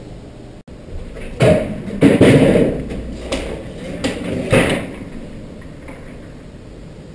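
A run of heavy thuds and bangs at uneven intervals, the loudest about one and a half and two seconds in, the last about four and a half seconds in, then a steady hiss.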